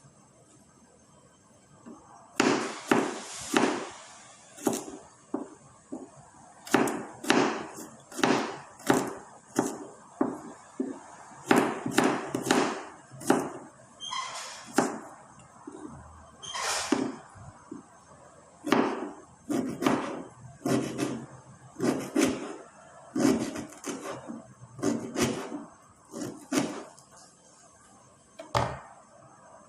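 Food being struck hard on a kitchen surface: a long series of heavy thuds, about one or two a second, with short pauses between runs, as in chopping or pounding ingredients.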